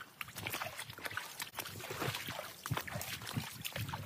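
A group of Asian elephants moving about at close range: irregular crunching and rustling with low thuds.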